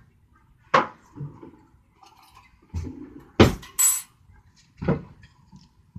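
A few sharp knocks and clinks of hard objects being handled, with a brief high ringing clink near the middle.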